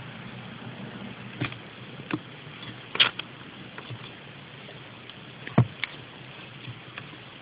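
Kittens scuffling in a cardboard box lined with newspaper: a scatter of sharp taps and knocks, the loudest about three seconds in and again halfway through, over a steady hiss.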